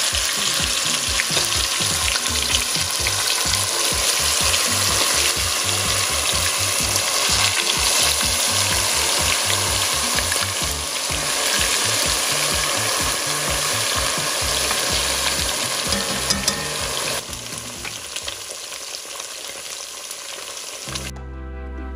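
Marinated pork ribs sizzling and crackling loudly in a shallow pan of hot oil. The sizzle quietens about seventeen seconds in, and music takes over near the end.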